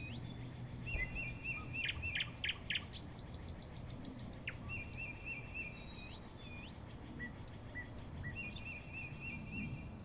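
Birdsong from a forest nature sound-effects track: one bird repeats a short chirping phrase three times, other birds give higher falling chirps and a few louder calls around two seconds in, with a quick run of clicks about three seconds in, over a low steady hum.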